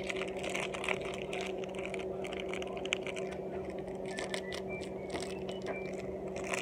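Small irregular clicks and rustling as a plastic toy figure and its wrapping are handled, over a steady low hum.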